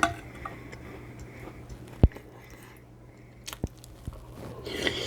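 Close-up chewing and mouth sounds of someone eating Mexican shrimp cocktail, with a sharp click about two seconds in and a louder wet stretch near the end.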